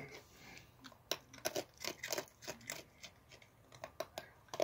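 Raccoon chewing crunchy food close up: a run of irregular crisp crunches.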